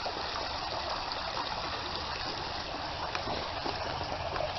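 Shallow creek water running steadily with a trickling flow, with a few faint clicks over it.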